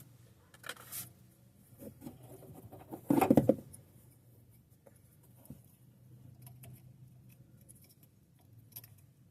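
Small handling noises as the new headlight bulb is handled: light rustles and clicks, with one louder, short rustle about three seconds in.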